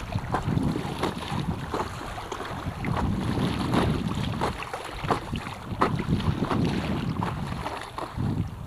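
Wind buffeting the microphone in a steady low rumble, with irregular small splashes and slaps of choppy water and paddle strokes against an inflatable stand-up paddleboard.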